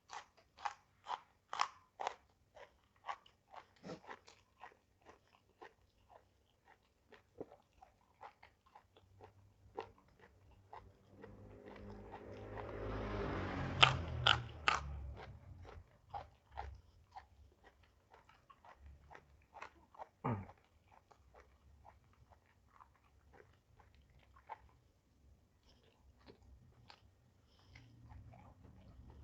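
Crunchy food being bitten and chewed close to the microphone: a run of sharp crunches, about two a second at first, then sparser, with a louder cluster of crunches around the middle.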